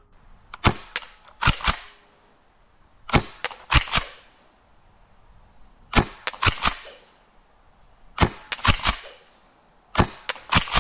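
Airsoft pump-action shotgun being fired repeatedly, each sharp shot followed by the quick clack-clack of the pump being racked. There are about six such clusters, roughly two seconds apart.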